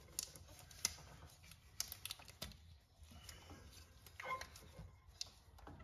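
Scattered light clicks and taps, unevenly spaced, as gloved hands and a ratchet on the tensioner work a stiff new serpentine belt onto the alternator pulley.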